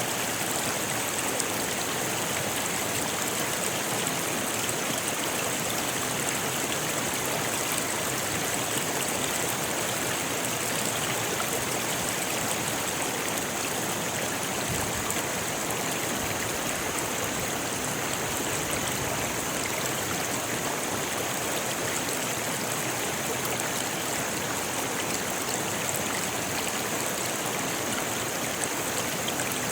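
Rocky river flowing steadily over stones, a continuous rush of water with no letup.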